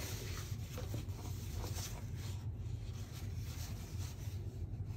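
Paper and cardboard packaging being handled, with light, scattered rustling and rubbing over a steady low hum.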